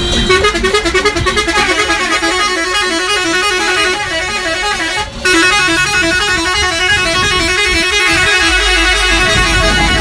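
Musical air horns on a convoy of Volkswagen Crafter minibuses, several sounding at once in a rapid stepping multi-note tune, loud and continuous, with a momentary break about five seconds in.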